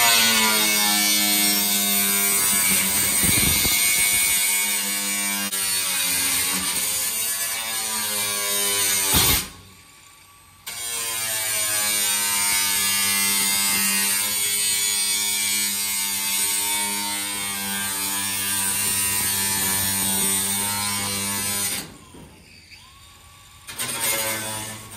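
Cordless angle grinder cutting a drain hole through a ribbed metal roof panel: a steady motor whine with the harsh hiss of the disc in the metal. It stops about ten seconds in and spins back up to cut until about twenty-two seconds in, then runs briefly once more near the end.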